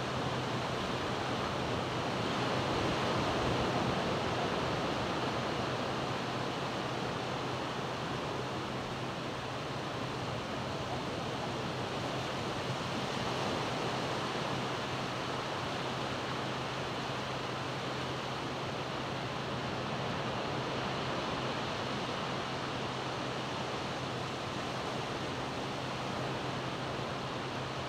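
Steady wash of ocean surf from small waves breaking along the shore, swelling a little a few seconds in.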